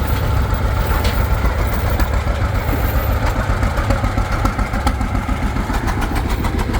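Antique farm tractor engine running at low speed, with a steady, fast, even firing beat.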